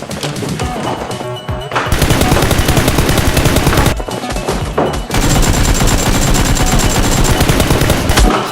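Rapid automatic gunfire sound effects in two long bursts, the first about two seconds in and the second after a short gap, over background music.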